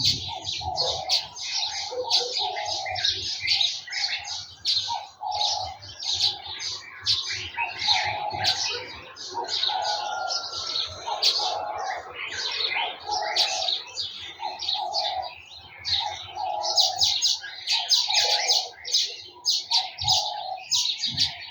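A chorus of many small birds chirping and twittering at once, with a lower call repeated about once a second underneath.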